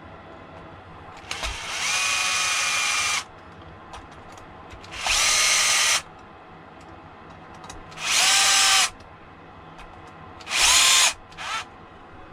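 Powered screwdriver driving small screws into a fan mount, in four bursts of whirring of one to two seconds each, the last followed by a short blip; in some bursts the whine drops in pitch just before it stops.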